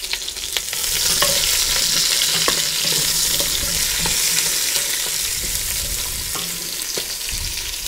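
Onion wedges sizzling in hot clarified butter in a cast-iron Dutch oven, getting louder about a second in. A wooden spoon stirs them, with scattered scrapes and taps against the pot.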